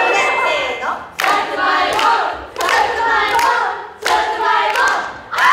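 A group of young women chanting a call together in unison, repeating a short phrase about every second and a half, with hand clapping.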